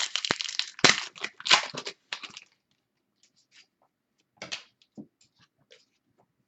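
A trading-card pack wrapper torn open and crinkled in the hands, crackling for about the first two and a half seconds, followed by a few faint clicks as the cards are handled.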